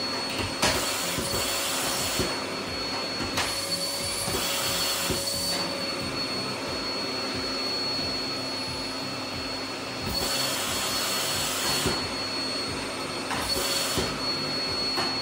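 Household vacuum cleaner running steadily with a high-pitched whine. Its hiss grows louder for a second or two at a time, several times over.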